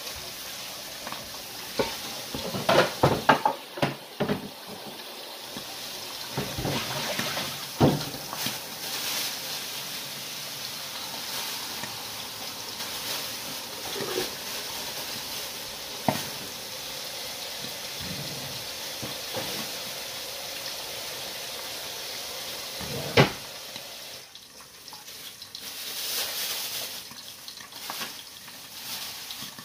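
Kitchen tap running into a sink while things are rinsed and handled, with a few sharp clatters of dishes in the sink. The steady water noise drops away about four-fifths of the way through, leaving irregular handling sounds.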